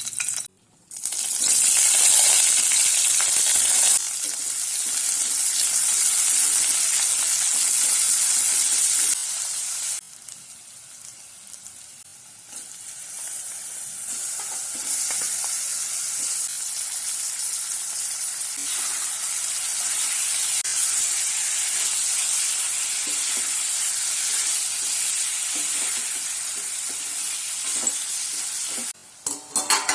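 Chicken frying in hot oil in a pan: a loud, dense sizzle with stirring. The sizzle falls away abruptly about ten seconds in, then builds back up and holds steady.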